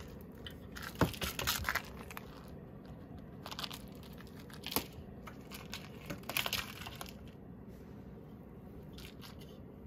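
A cat playing with a feather toy on a wooden floor: scattered bursts of scuffing, scratching and rustling as it bats, grabs and rolls with the toy. The loudest sound is a sharp tap about a second in.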